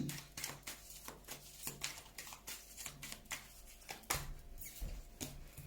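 Oracle cards being shuffled and handled: a run of light flicks and taps, with a heavier knock about four seconds in.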